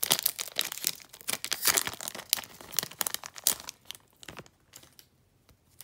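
Foil wrapper of a trading-card pack being torn open and crinkled: a dense run of crackling rips that thins out and stops after about four seconds.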